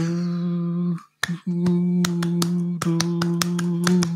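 A man imitating a vuvuzela with his voice: a steady, low buzzing drone held in long notes, broken off about a second in and again briefly near three seconds. Sharp clicks sound over it from just after the first break.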